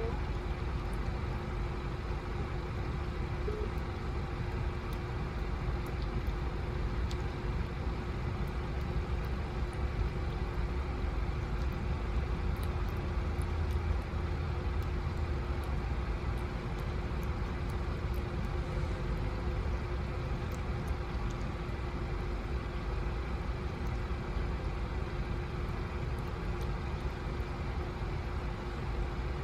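A steady low mechanical drone with a constant hum, as from an idling engine or running machinery. Faint, scattered small clicks of a cat licking and chewing soft canned tuna sit above it.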